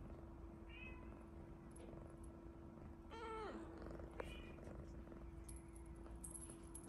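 British Longhair kitten purring softly, with a short chirp about a second in, a meow that falls steeply in pitch around three seconds in, and a brief chirp just after.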